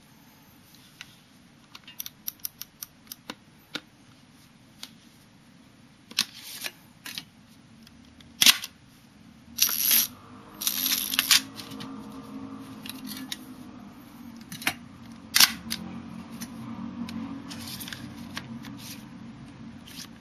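Mechanical clicks and clacks from a 1953 Hasselblad 1000F medium-format camera being worked by hand. First comes a quick run of small clicks, then several louder clacks and short rasping ratchet sounds, and two more sharp clicks near the end.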